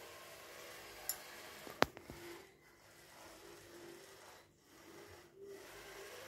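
Small DC gear motors of a homemade Wi-Fi robotic sweeping truck whirring faintly as it drives over a stone floor, with a steady scraping rub. A small click about a second in and a louder sharp click a little under two seconds in.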